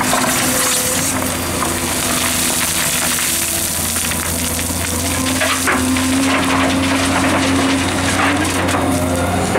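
Liebherr R944 excavator's diesel engine running steadily under load while its bucket digs into gravel, swings and tips the load into a dump truck's steel bed. Stones rattle and crash about halfway through as the bucket empties.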